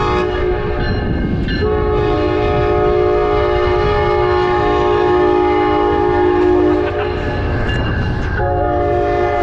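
Amtrak Midwest Siemens Charger diesel locomotive blowing its chime horn for a road grade crossing as it passes close by, over the rumble of the train. One long blast whose chord shifts lower about a second and a half in, a brief break about seven seconds in, then another blast near the end.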